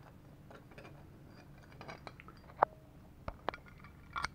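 Small steel parts being handled: bolts, washers and bicycle sprockets clinking and knocking. Scattered light clicks, one sharp clink with a brief ring about two and a half seconds in, and a few quick knocks near the end.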